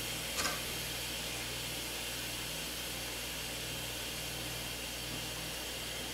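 Instant Pot pressure cooker's steam release valve hissing steadily under a towel during a quick release: pressure is still venting after cooking, and the float valve has not yet dropped. A brief click about half a second in.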